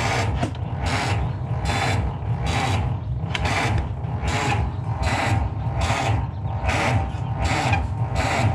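A Ford Model T's starter motor cranking the cold four-cylinder engine pretty slow, in an even chug about twice a second, without the engine catching.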